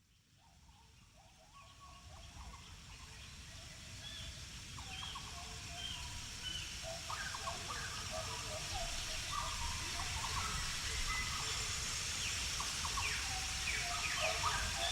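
Many birds chirping and calling over a steady hiss, the whole ambience fading in gradually from silence.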